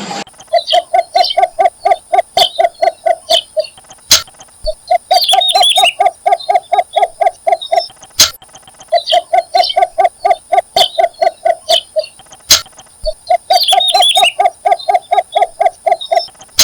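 Yellow bitterns calling at the nest: four bouts of rapid, evenly repeated low clucking notes, about six a second, with brief higher chattering notes over them.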